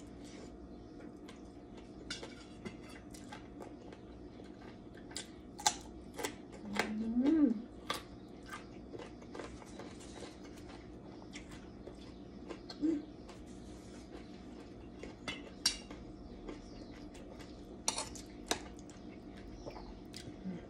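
Metal spoon and fork clinking and scraping against metal serving trays and bowls in a scatter of separate clicks while a person eats, with soft chewing. A short rising hum of voice comes about seven seconds in, over a steady low hum throughout.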